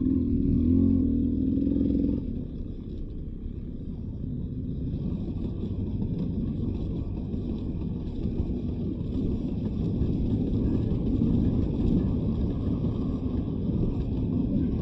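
Beta 300 RR two-stroke dirt bike engine running while riding a trail, its revs rising and falling. The pitch is clearest over the first two seconds, then it settles into a rougher drone that grows a little louder later on.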